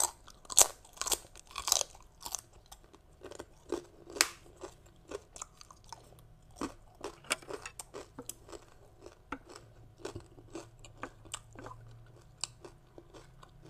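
A person crunching and chewing crisp sesame rice cracker (bánh đa). There are sharp, loud crunches in the first few seconds, then softer, steady chewing that thins out near the end.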